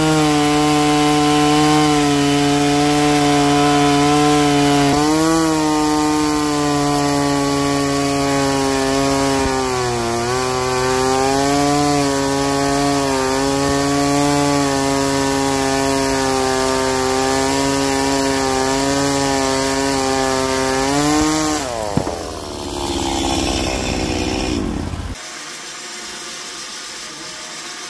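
Norwood HD36 bandsaw mill's engine running at high speed while the blade cuts through a pine log, its pitch sagging a little now and then as the blade takes load. About 21 seconds in the engine is throttled down, its pitch falling away, and the sound drops to a lower idle.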